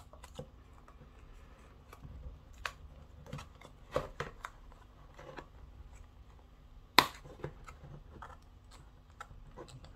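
Scattered clicks, taps and light scrapes of a small cardboard retail box being worked open by hand, the box resisting opening. A sharp click about seven seconds in is the loudest.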